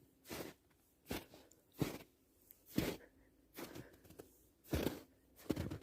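Footsteps crunching in snow: about seven steps at a slow walking pace, roughly one a second.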